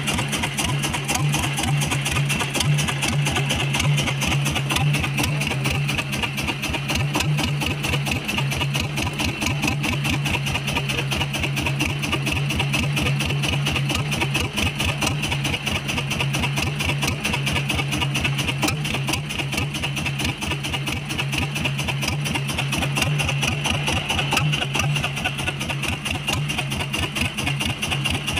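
Small fishing boat's engine running steadily, with a fast, even pulsing throb.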